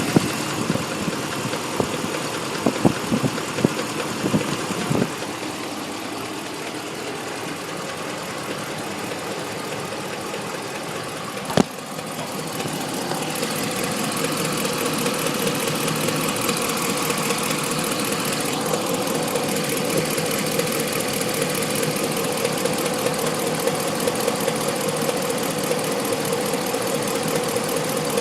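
2014 Ram 1500 engine running with a rapid knocking from the valve train, which the owner takes for a valve train knock. A few sharper knocks sound in the first five seconds and a single sharp click near the middle. The running gets louder partway through.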